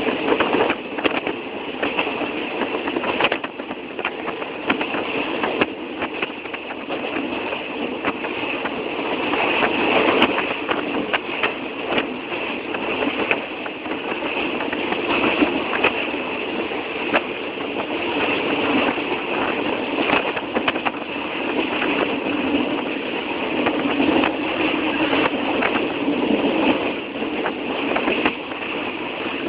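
Train noise: a steady mechanical din with frequent short clicks and rattles throughout, loudest around ten seconds in.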